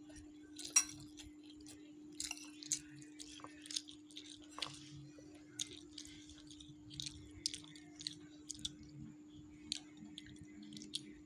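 Eating fried noodles: irregular small clicks and smacks of chewing, with a metal spoon and fork scraping and tapping a plate, over a steady low hum.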